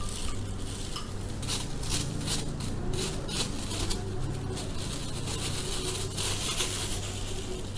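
Metal spoon stirring and scraping in a ceramic bowl of liquid chili-garlic dipping sauce: a run of quick clinks and scrapes in the first half, then a short scratchy noise near the end, over a steady low hum.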